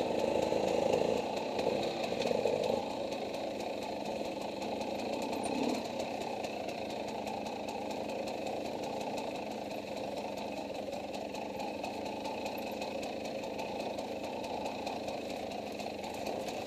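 KTM dirt bike engine running steadily at low trail speed, with a couple of brief louder surges of throttle in the first few seconds.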